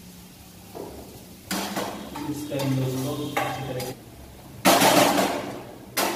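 A spatula stirring and scraping tomato masala in a non-stick frying pan, in short bursts, mixed with a man's low wordless murmuring, and a sharp knock near the end.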